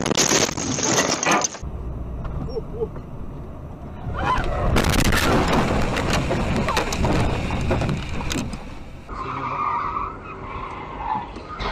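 Car crash heard from inside the vehicle: loud crunching and clattering impacts of metal and breaking glass, once at the start and again from about five to eight seconds in, with a quieter stretch between. Near the end, steady road noise from a moving car.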